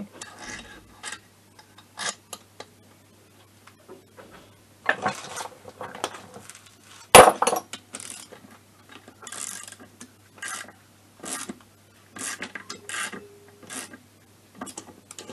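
Stud tool turned with a ratchet as cylinder studs are screwed into a scooter engine's aluminium crankcase: short bursts of ratchet clicking and metal rubbing, with one sharp knock about seven seconds in.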